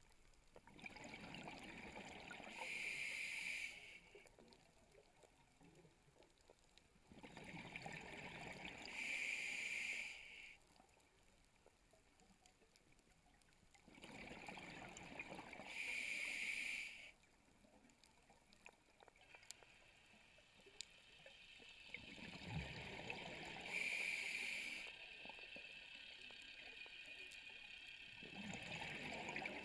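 Scuba diver breathing through a regulator, recorded underwater. Bursts of exhaled bubbles alternate with the regulator's hiss on each inhale, in a slow steady rhythm of about one breath every six to seven seconds, five in all.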